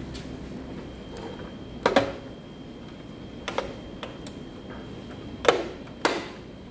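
Sharp clicks and knocks of hard plastic as a hand works the cab door of a Bruder Scania toy truck, in about four short groups, the loudest a little past the middle.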